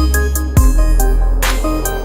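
Background electronic music with heavy bass and a beat.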